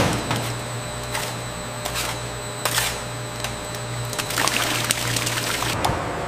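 Liquid latex pouring and splashing onto a stainless-steel mesh screen over a steady low machinery hum, with scattered metallic clicks and clatters. The hum changes near the end.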